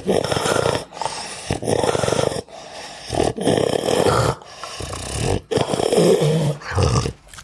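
An angry pug growling in a string of rough growls, each about a second long, with short breaks between them.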